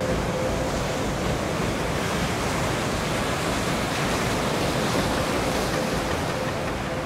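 Sea surf breaking and washing over a rocky shore: a steady rush of waves.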